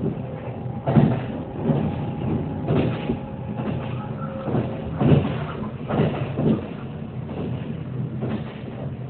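Interior running noise of a Kintetsu limited express electric train: a steady low rumble from wheels and track with a faint steady whine, broken by irregular knocks and jolts.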